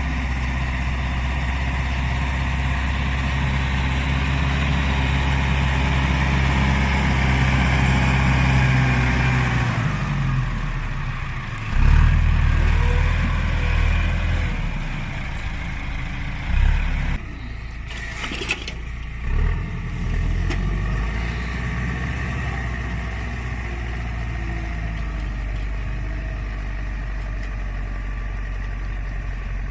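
Case CX80 tractor engine running steadily while ploughing. About ten seconds in it eases off, and there are a few heavy thumps and clunks and a couple of sharp clicks. Then it runs on steadily at a lower note.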